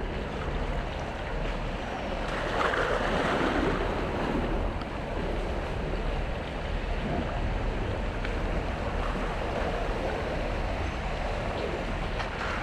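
Steady waterside wash of lapping water and wind, with wind rumbling on the microphone.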